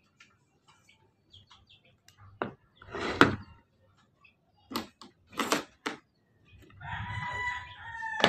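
Plastic parts of a mini food processor being handled and taken apart: scattered clicks and a few louder clatters of the clear bowl, lid and blade. Near the end a rooster crows once, about a second and a half long.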